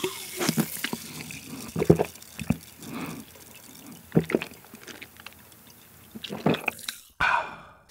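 Close-miked drinking of canned cola: gulping swallows and wet mouth and lip clicks, spaced a second or so apart.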